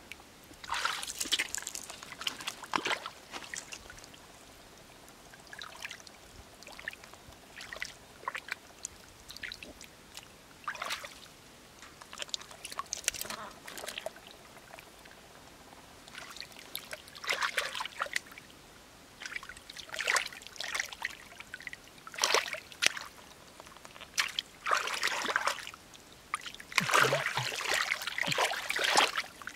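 Hands splashing and sloshing through shallow muddy water, groping in the mud, in irregular bursts with short pauses between.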